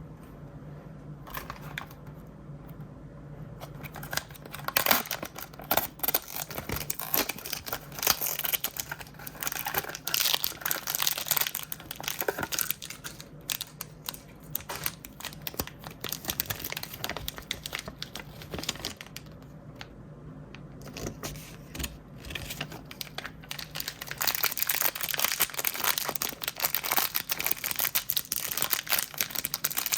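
Plastic blind-bag packaging being crinkled and torn open by hand, in dense crackly bursts that come in two busier stretches with lighter handling between them.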